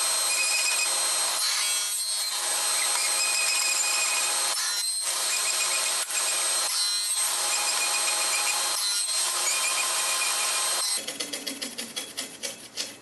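Table saw running and cutting a row of grooves across a flat board held in a box joint jig, its sound dipping briefly several times between passes. About eleven seconds in the saw is switched off and winds down with fading ticks.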